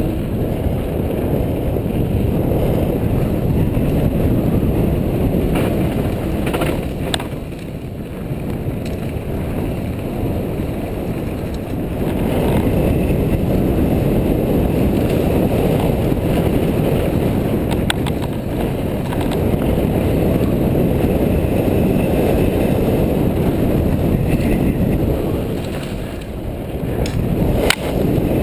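Mountain bike rolling downhill on a dirt and gravel trail: a steady rush of wind on the microphone and tyre rumble, with a few sharp clicks and rattles from the bike. The rush eases briefly twice, around eight seconds in and near the end.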